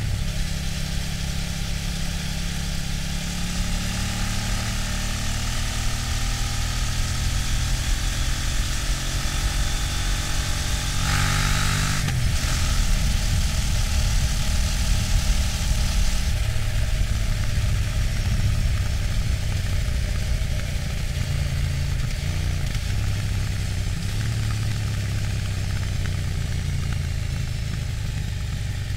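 KTM 790 Duke's LC8c parallel-twin engine with its stock exhaust, heard onboard while riding, its note rising and falling with throttle and gears. Wind rush over the bike is heard alongside, with a brief loud gust about eleven seconds in, and it eases from about sixteen seconds in as the bike slows.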